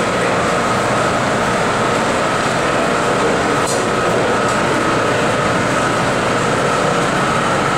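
Bombardier R179 subway train standing at the platform with its doors open: a steady, loud hum and hiss of its running equipment with a constant high whine over it.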